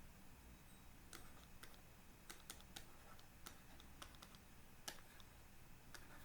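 Near silence with faint, irregular clicks and taps, about a dozen, the sharpest one near the end.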